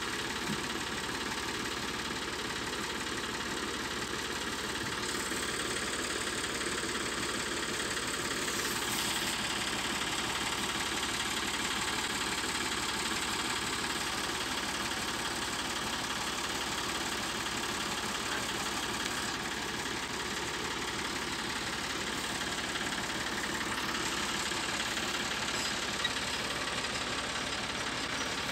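An engine idling steadily, holding one speed throughout.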